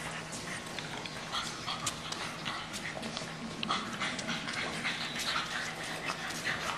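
A group of English bulldog puppies at play: heavy breathing and short whines, with scattered clicks and knocks as they scuffle over toys.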